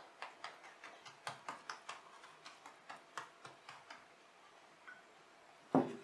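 Pastry brush dabbing oil onto thin sheet pastry: quick papery taps, about four or five a second, that thin out after about four seconds. One louder thump follows near the end.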